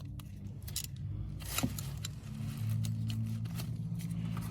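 Light metallic clinks and scrapes of tools and parts being handled while a part is taken off under a car, over a steady low hum that gets louder about halfway through.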